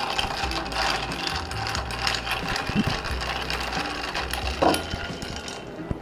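A long bar spoon stirring ice cubes in a tall glass, a fast, continuous clinking and rattling of ice against the glass that eases off near the end.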